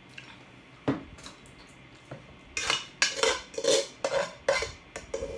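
Cutlery clinking and scraping against a dish of fried noodles: one sharp clink about a second in, then a quick run of clinks and scrapes from about halfway on.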